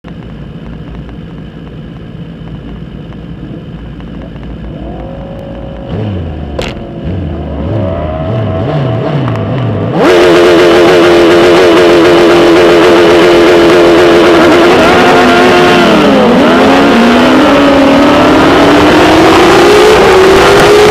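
Kawasaki ZX-10R inline-four superbike engine heard onboard: a quieter rumble with a few quick throttle blips, then about halfway through it jumps to a loud, high, steady rev held for the race start. Near the end the revs dip and then climb steadily as the bike accelerates away.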